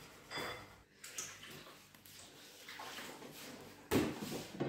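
Soft kitchen handling noises of hands on a mint dough ball in a clay bowl, then a short rustling burst about four seconds in as dry meal is sprinkled by hand onto a clay griddle.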